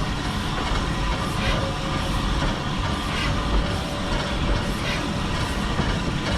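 Heritage railway passenger train running along the line: a steady rumble of wheels on rail, with faint clicks every second or two.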